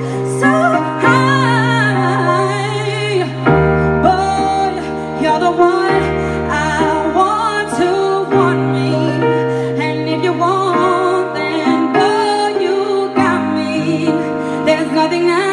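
A woman singing a pop song live into a handheld microphone over a keyboard backing with sustained chords.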